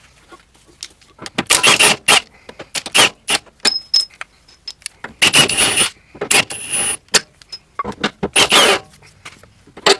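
Metal tools and parts clattering and rattling in several short bursts, with sharp clicks in between, as a Honda Civic's control arms are unbolted and pulled out.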